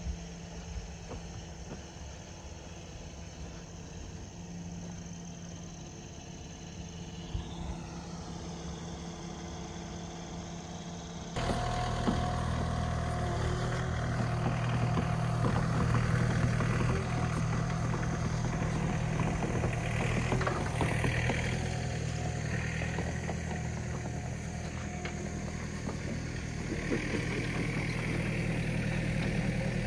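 An engine running steadily, a low even hum that gets louder after a cut about eleven seconds in.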